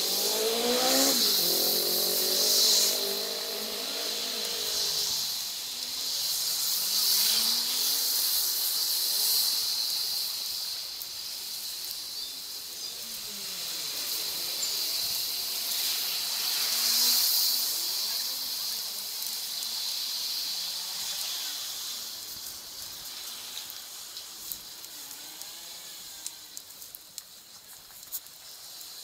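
Wind and tyre hiss on a bicycle-mounted action camera riding a wet city street, sped up three times, with rising and falling tones from passing traffic that are strongest in the first few seconds.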